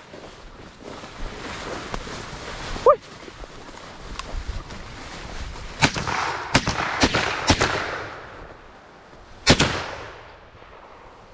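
Shotgun fired at a deer: a loud shot about six seconds in, several more sharp reports close together over the next two seconds, and another loud shot about three and a half seconds after the first. A dog gives a single short bark about three seconds in.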